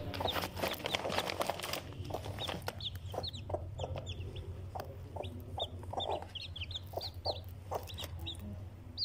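Young chicks peeping in many short, high cheeps, several a second, with a mother hen's low clucks among them.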